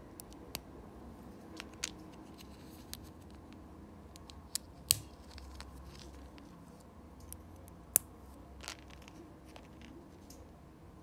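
Small plastic LEGO pieces clicking as they are handled, pressed together and set down on a tabletop: scattered sharp clicks, the loudest about five and eight seconds in, over a faint steady hum.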